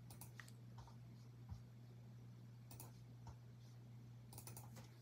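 Near silence: room tone with a steady low hum and a few faint clicks.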